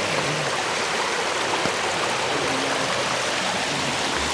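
Steady rush of water from a shallow rocky stream running over stones.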